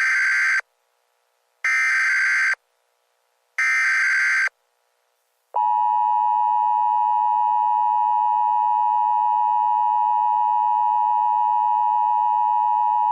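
Emergency Alert System SAME header: three short screeching digital data bursts about two seconds apart, then the steady two-tone EAS attention signal, which begins a little under halfway through. Together they mark the start of an emergency alert broadcast.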